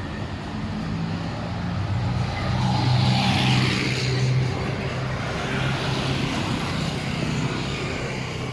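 Street traffic: a motor vehicle's engine running as it passes close, loudest about three to four seconds in and then easing back to a steady traffic hum.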